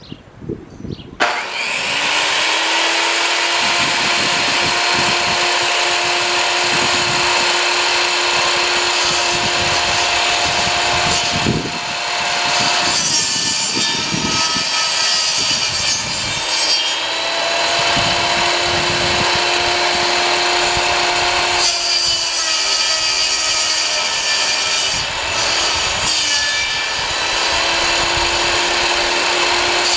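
Table saw blade spinning and grinding into a tree stump, starting about a second in and running continuously, its steady hum dipping several times as the blade is loaded by the wood.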